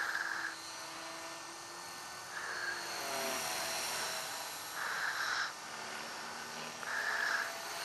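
T-Rex radio-controlled helicopter flying overhead, its rotor and drive giving a steady high whine that swells about every two seconds as it manoeuvres.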